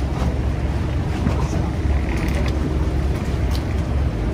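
A fishing boat's engine running with a steady low rumble, with a brief hiss about two seconds in.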